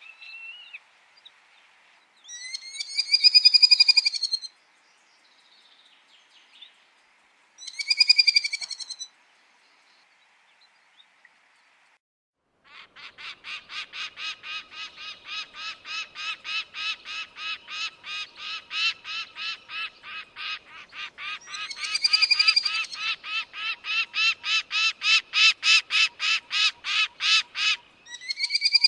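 Falcon calling: two long harsh screams a few seconds apart, then after a pause a fast run of sharp cackling calls, about three a second, lasting some fifteen seconds, with another scream over it and one more near the end.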